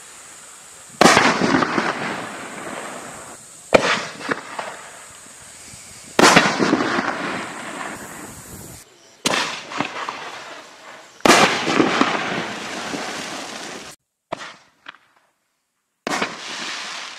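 Six-shot consumer fireworks cake firing 6-inch tiger-tail break shells: a series of loud booms about two to three seconds apart, each dying away slowly. A few smaller, sharper pops come near the end.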